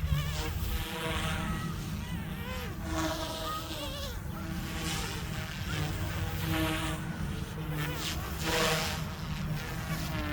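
Small electric RC helicopter (Goosky S2) in flight: a high buzzing whine from its motors and rotors, the pitch wavering up and down as it manoeuvres.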